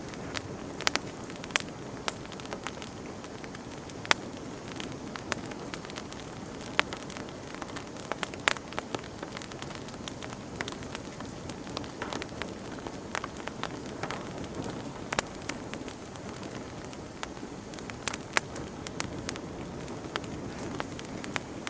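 Campfire burning with a steady low rushing sound and irregular sharp crackles and pops of burning wood.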